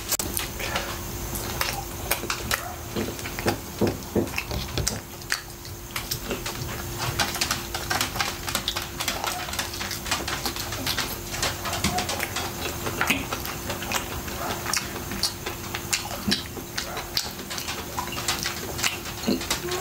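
Close-miked chewing and lip-smacking of a person eating grilled chicken: a constant, irregular run of small wet clicks and smacks.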